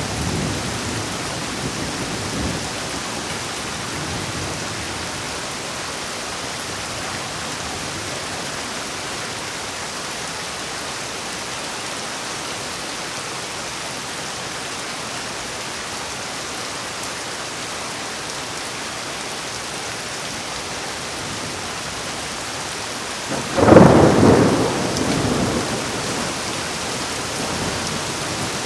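Heavy rain falling steadily, with one loud, sudden thunderclap near the end that rumbles away over a few seconds.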